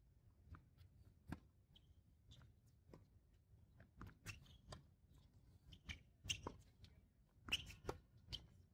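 Tennis rally on a hard court: a string of short sharp pops from rackets striking the ball and the ball bouncing, louder and closer together in the second half.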